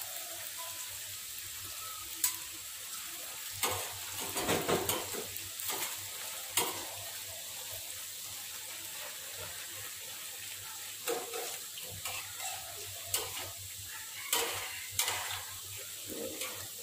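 Shredded taro strips deep-frying in a wok of hot oil, a steady sizzle. A metal spatula scrapes and knocks against the wok every few seconds as the strips are stirred.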